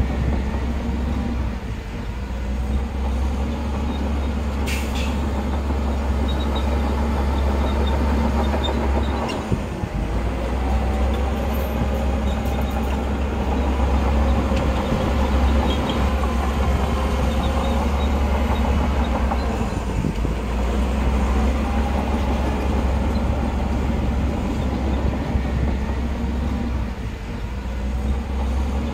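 Heavy diesel earthmoving machinery running steadily, its engine a deep low drone with rattling and clanking mixed in, and a brief sharp click about five seconds in.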